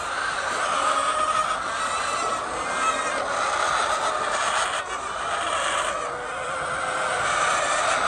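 Steady din of a large flock of chickens in a poultry shed, many birds clucking at once, with a few light clicks near the middle as eggs are set into a metal bucket of eggs.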